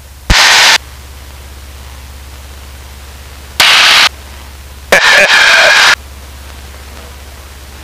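Loud bursts of aircraft radio static over the headset intercom: three short rushes of hiss, the last about a second long with a garbled voice in it, over a steady low drone.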